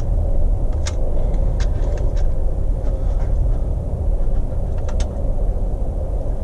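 A steady low rumble with a few short, sharp clicks and taps, from the plastic parts of a Jeep TJ steering column being handled and fitted.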